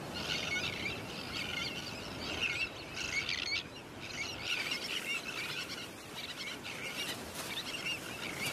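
Tern colony calling: many short bird calls overlapping one another, over a steady background noise.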